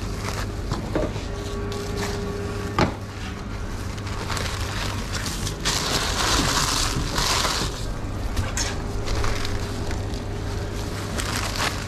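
Sandwich wrapping paper rustling and crinkling as gloved hands fold and press a sub sandwich into it, loudest from about six seconds in, over a steady low hum.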